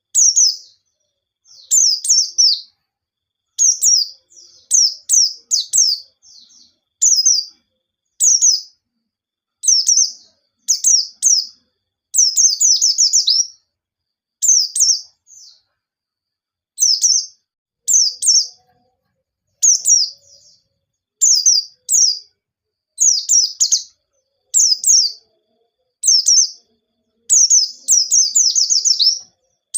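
White-eye (pleci) singing in short, rapid bursts of high, sharp chirps, one burst every second or two with brief silences between.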